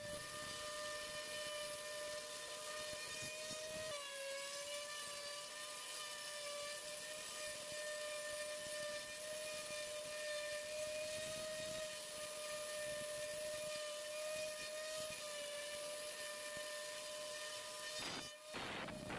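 CNC router spindle running while its bit cuts a shallow groove into MDF, giving a steady high whine. The pitch dips slightly about four seconds in, and the sound breaks off for a moment near the end.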